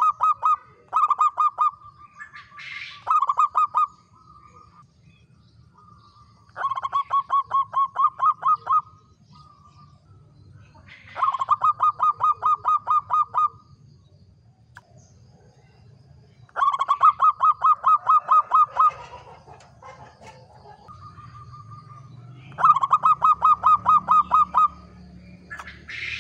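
Zebra dove (perkutut) singing: bursts of rapid rolling coos, each up to about two seconds long with about ten quick notes, repeated every few seconds with brief single coos between.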